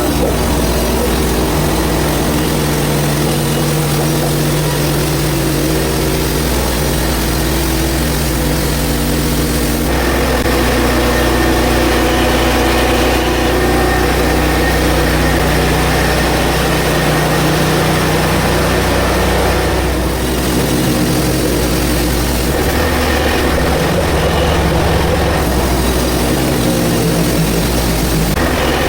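Portable bandsaw mill's gas engine running steadily while the band blade saws through a black cherry log. The engine note changes about ten seconds in.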